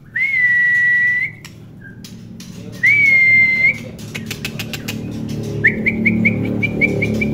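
Two long, steady whistled notes at one pitch, each rising briefly at the start, the second about three seconds after the first. A patter of light clicks follows, then near the end a quick run of short rising whistles, about five a second.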